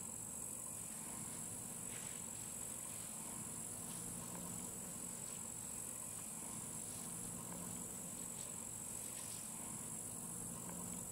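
Insect chorus chirring: a steady high-pitched drone, with a few faint clicks.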